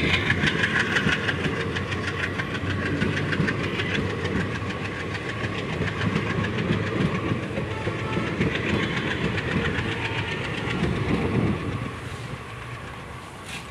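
Indian Railways passenger coaches rolling past at departure speed, their wheels clacking steadily over the rail joints. The rumble and clatter fall away sharply about twelve seconds in as the last coach passes.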